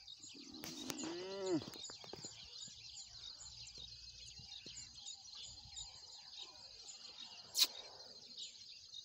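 A man's drawn-out moan near the start, rising and then falling in pitch, over a steady background of high chirping from the grass; a single sharp click comes near the end.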